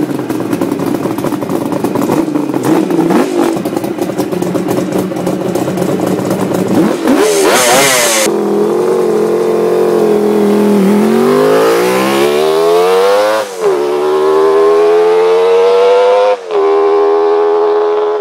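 Custom Millyard Kawasaki KH500-based inline five-cylinder two-stroke motorcycle engine, running rough and busy at first, then blipped hard before the bike accelerates away. Its pitch climbs through the gears, dropping at two gear changes near the end.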